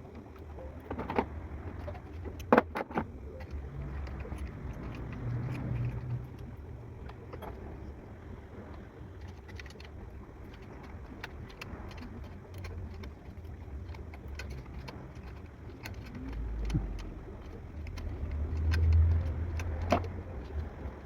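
Scattered metallic clinks and rattles of hand tools and parts being handled, over a low, uneven rumble.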